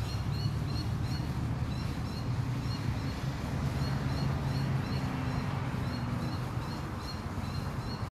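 Outdoor ambience: a bird repeating short high chirps, about two or three a second, over a steady low rumble.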